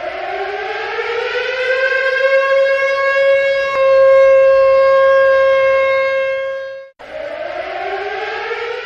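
Siren rising in pitch to a loud, steady wail and holding it. It cuts off abruptly about seven seconds in, then starts winding up again just before the end.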